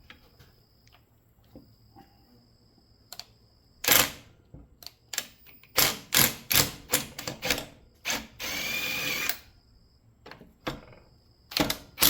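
A power drill-driver runs for about a second, backing out a bolt from a motor starter's housing. Around it come sharp metal clicks and knocks as tools and parts are handled.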